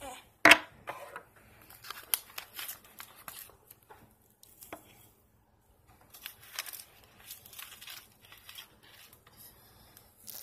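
A small wooden tray is set down on a wooden table with one sharp knock about half a second in, followed by scattered rustling, crinkling and small clicks of handling.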